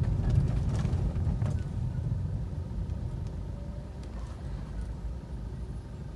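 In-cabin rumble of a Maruti Vitara Brezza slowing to a stop, the engine near idle. The low road and engine noise fades steadily as the car slows.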